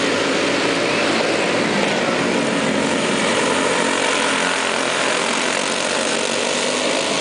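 A pack of racing karts with Briggs & Stratton Animal single-cylinder four-stroke engines running hard at racing speed as they pass, a steady dense engine drone with no let-up.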